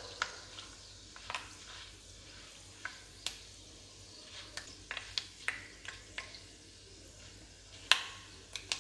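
Fenugreek seeds crackling in hot oil with bay leaves in a kadai during tempering: scattered sharp pops over a faint sizzle, the loudest about eight seconds in, as a spatula stirs them. The seeds are being left to crackle through so they don't turn bitter.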